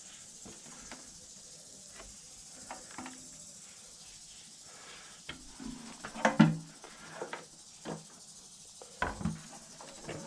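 Scattered light clicks and knocks of motorcycle parts being handled and fitted by hand, with a louder cluster of knocks a little after six seconds and another around nine seconds.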